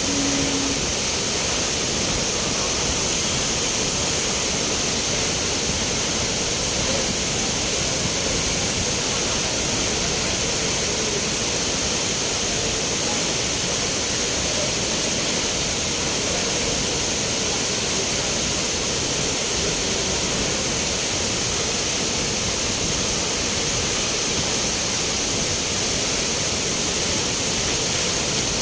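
Spring water flowing and splashing in a steady, even rush that holds unchanged throughout.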